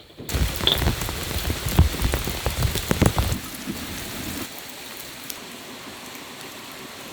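Rain falling, with large drops striking a surface close by in quick succession for the first few seconds, then a quieter, steady rain hiss from about four and a half seconds in.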